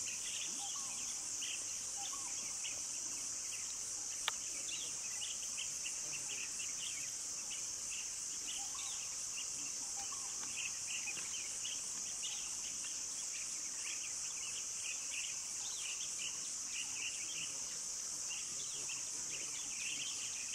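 Steady, high-pitched drone of forest insects, with many short chirps scattered over it and a single sharp click about four seconds in.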